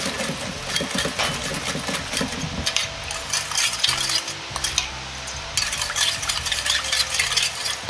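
Metal spoon stirring a liquid sauce in a stainless steel bowl: a quick, continuous run of clinks and scrapes against the bowl.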